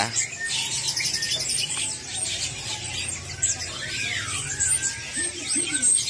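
Many caged songbirds chirping and singing at once, with high overlapping calls, trills and short rising and falling whistles, over a low steady hum.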